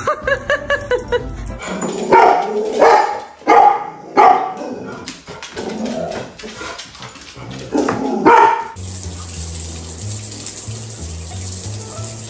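A dog barking: a string of sharp barks about two to four seconds in and one more about eight seconds in. Then water running and splashing in a bathtub.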